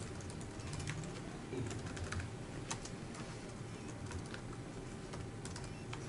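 Typing on a computer keyboard: scattered, irregular keystrokes and key clicks, heard faintly over low room noise.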